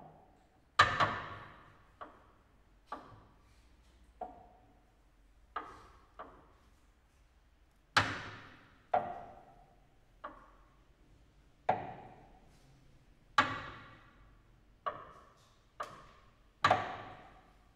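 Contemporary chamber music for clarinet, cello and piano, made of sparse, isolated short percussive notes. Each sharp attack rings and dies away into silence before the next comes, about once a second at irregular intervals.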